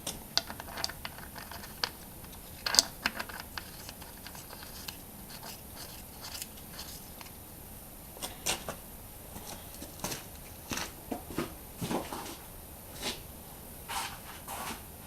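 Scattered small handling noises: irregular clicks, rustles and scrapes, the sharpest about three seconds in.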